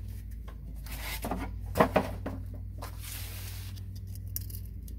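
Steady low hum with a few small clicks and knocks of hand work between about one and two seconds in.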